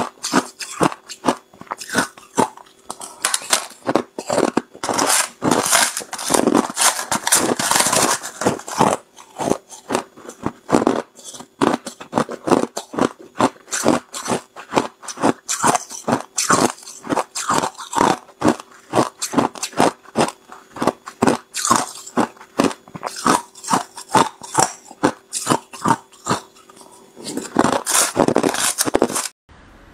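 Hard clear ice being bitten and chewed close to the microphone: a rapid, uneven run of sharp cracks and crunches, several a second.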